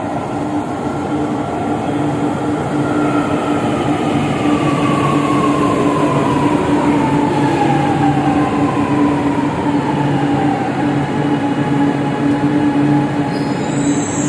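Electric metro train pulling in along the platform and slowing to a stop, its running noise growing louder as it comes alongside. A whine falls steadily in pitch as it slows, over a constant low hum.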